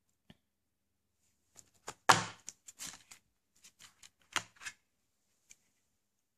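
Plastic DVD keep case being snapped open, with a sharp click about two seconds in and a few smaller plastic clacks around it. A second small cluster of clicks follows as the disc is pressed off the case's centre hub.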